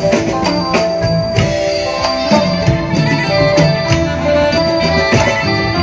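Nang talung shadow-puppet band music: percussion strikes under held melodic notes.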